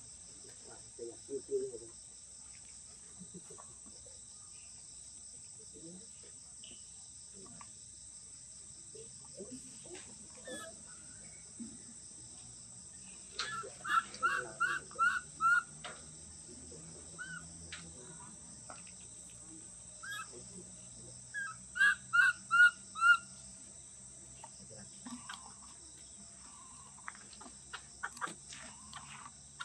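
A steady high insect drone runs throughout. Over it come two runs of five or six short high chirps, about three a second: one about halfway through and another some seven seconds later.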